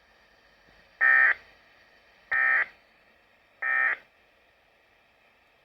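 Three short bursts of SAME digital data tones from a weather radio broadcast, each about a third of a second long and a little over a second apart: the end-of-message code that closes a weekly alert test.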